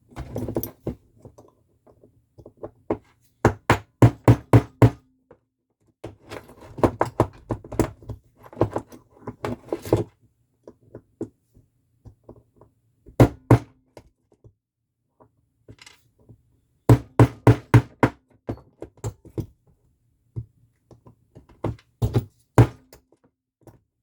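Repeated sharp knocks in bursts of several quick strikes with pauses between: a tool being struck to drive a piece out of a hood lock key cylinder.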